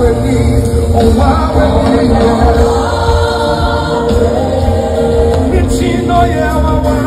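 Live gospel music: a crowd or choir singing along over a band with a steady bass, with long held sung notes.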